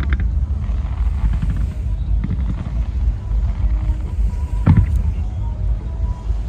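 Fireworks display: a continuous low rumble with one sharp firework bang about two-thirds of the way through, with crowd voices faintly underneath.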